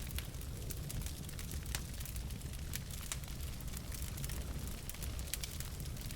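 Wood logs burning in a fireplace: many sharp, irregular crackles and pops over a steady low rumble of the flames.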